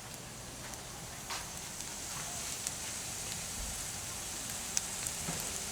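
Boiled wild mushrooms frying in a skillet: a steady sizzle with a few scattered pops and crackles.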